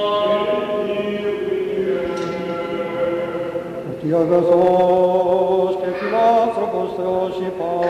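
Byzantine chant of the Greek Orthodox Divine Liturgy: a voice sings a long, drawn-out melodic line over a steady held drone (the ison), with a new phrase starting about four seconds in.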